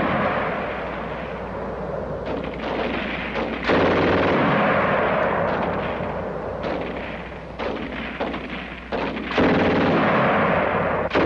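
Sustained machine-gun fire in long bursts: a fresh burst cuts in sharply about four seconds in and another about nine seconds in, each easing off gradually.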